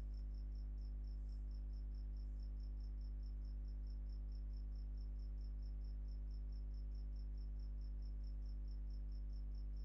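Faint, rapid high-pitched chirping, about five short pulses a second, over a steady low electrical hum.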